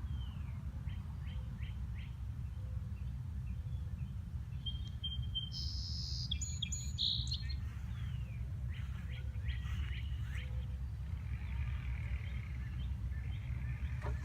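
Wild birds chirping and calling in short, scattered phrases, with the brightest calls about midway through, over a steady low rumble.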